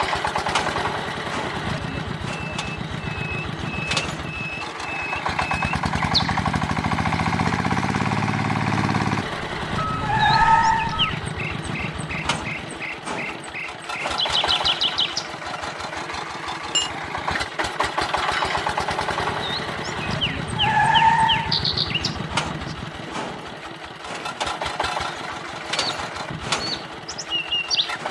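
A miniature tractor's small motor running with a rapid, even clatter, broken a few times by short high beeps.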